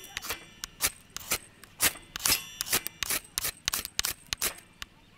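Ferrocerium fire-starter rod struck over and over with a flat steel scraper: rasping scrapes about two a second, showering sparks onto char cloth and tinder to light a campfire.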